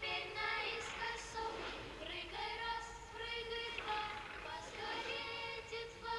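A high-pitched voice singing held notes of a melody, with music.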